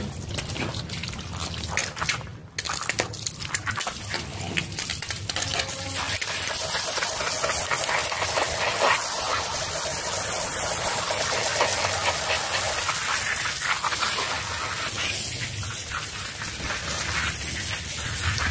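Water gushing and splashing onto a soapy shag rug as it is rinsed, with a brief break about two seconds in, then a steady rush of water over the pile.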